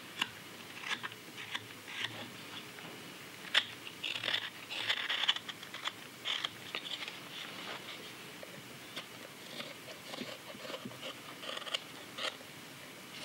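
Carving knife slicing and scraping green sycamore wood in short, irregular strokes with a few sharp clicks, the densest run of cuts about four to five seconds in.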